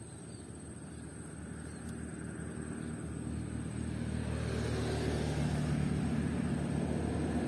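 An engine hum that grows gradually louder over the first few seconds, then holds steady.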